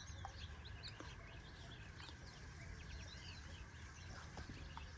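Faint birds chirping in the background, short scattered chirps over a low steady hum.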